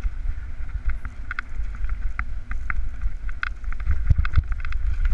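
Wind buffeting the microphone of a mountain bike descending fast over rough trail, with frequent quick clicks and rattles from the bike and a few heavier knocks about four seconds in.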